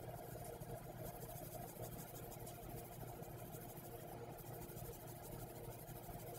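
Faint shaking of poppy seeds from a shaker bottle onto raw bagel dough, over a steady low hum of room tone.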